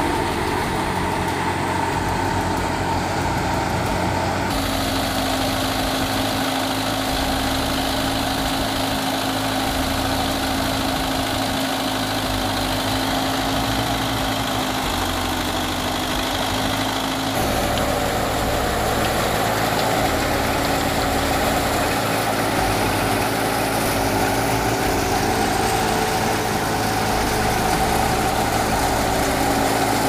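Tractor-driven wheat thresher running under load as wheat is fed in: the tractor engine and the belt-driven threshing drum make a continuous mechanical drone. Its tone changes abruptly about four seconds in and again past the middle.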